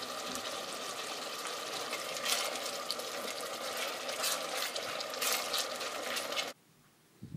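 Sliced onion, dry red chillies and tomato sizzling in hot oil in a steel pot, with a spoon stirring through them and scraping now and then. The sizzle cuts off suddenly about six and a half seconds in.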